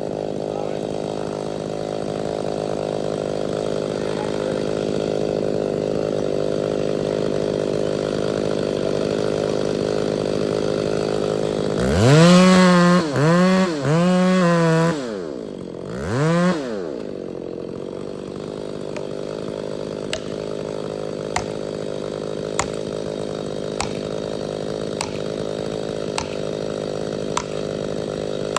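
Chainsaw engine idling steadily, blipped to high revs three times in quick succession about halfway through, then once more before dropping back to idle. Faint sharp ticks come about once a second near the end.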